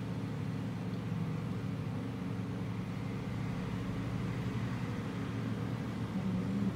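A steady low mechanical hum with a faint hiss over it, unchanging throughout.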